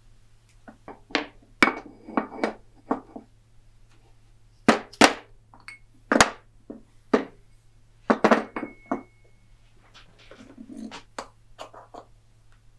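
Metal parts and hand tools clinking and knocking on a wooden workbench as a bandsaw's step pulley and shaft are taken apart with snap-ring pliers; irregular sharp clinks, with a metal part briefly ringing twice.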